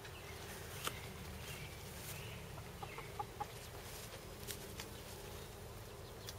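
Chickens clucking in short, scattered calls, with a few sharp clicks over a steady low background hum.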